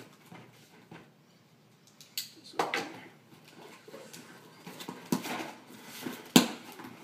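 Packing tape on a cardboard box being slit with a knife and torn off, then the box flaps pulled open: scattered scraping and tearing with several short, sharp rips. The loudest rip comes near the end, as the flaps come apart.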